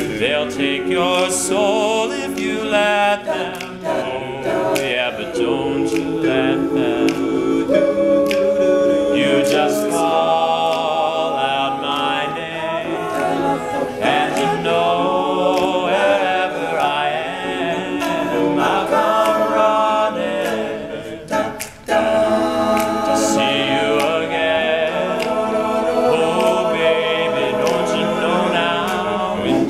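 Male a cappella group singing in close harmony, voices only with no instruments, with one short break about two-thirds of the way through.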